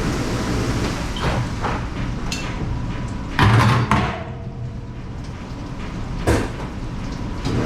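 Several knocks and bangs of dishware and equipment being handled, the loudest a clatter about three and a half seconds in, over a steady low machine rumble.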